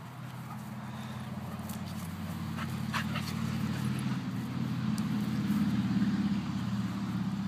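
Pit bull-type dogs play-growling in a continuous low, rough rumble as they wrestle, building to its loudest about six seconds in.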